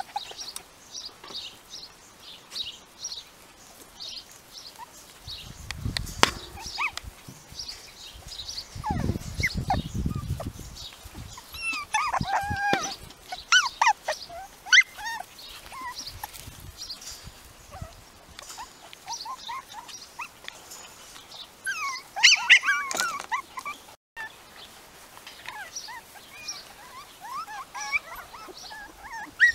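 Young puppies whimpering and yipping in short, high, rising and falling calls, in clusters about twelve and twenty-two seconds in. There are two stretches of low rumble in the first third.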